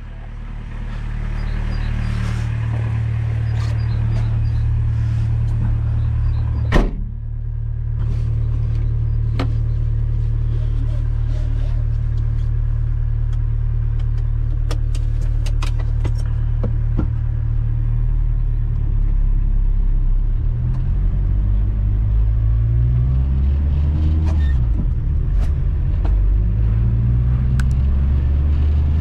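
1991 VW Caddy Mk1's 1.6 turbodiesel engine idling steadily, with a single loud door slam about seven seconds in. In the second half the engine revs rise and drop a few times as the pickup pulls away slowly through the gears.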